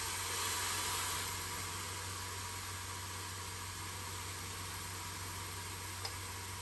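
Chicken fillets sizzling under the closed lid of a George Foreman electric contact grill, a steady hiss, with a small click about six seconds in.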